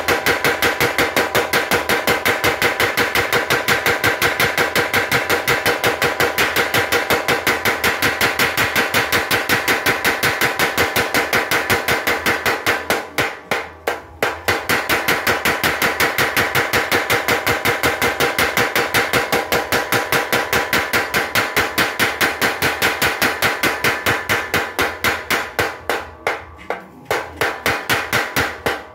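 Mechanical power hammer striking a red-hot steel blade on its anvil in a rapid, even train of metallic blows, about five a second. The blows break off briefly about halfway through, then resume, turning weaker and uneven near the end before they stop.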